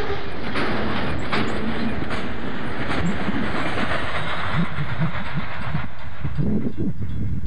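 Double-stack intermodal freight train rolling past close by: steel wheels clicking over rail joints over a steady rumble and rattle of the cars. About six seconds in, the last car goes by and the high clatter drops away, leaving a lower rumble.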